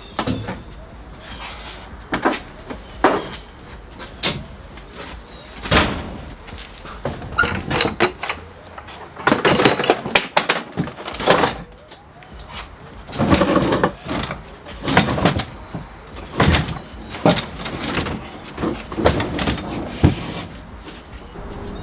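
A series of irregular knocks and clunks, with denser rattling clusters near the middle.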